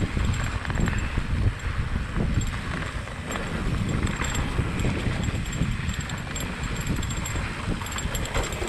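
Wind buffeting the microphone over the clatter and rattle of a mountain bike riding down a rough, rocky trail.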